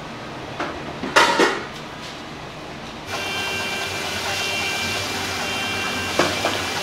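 Metal bowls and dishes clattering in a restaurant kitchen, with a loud burst of clatter about a second in. From about three seconds a steady machine hum with faint tones runs underneath, and a single metal knock comes near the end.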